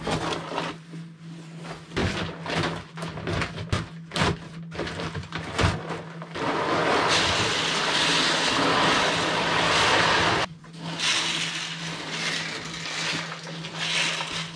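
Cat-litter pellets poured from a plastic bag onto a plastic drainage grid: a steady rushing rattle of about four seconds, starting about six seconds in and stopping suddenly. Before it, irregular clicks and knocks as the grid is set into its wooden frame; after it, softer scratching as the pellets are spread by hand. A steady low hum from the ventilation fan runs underneath.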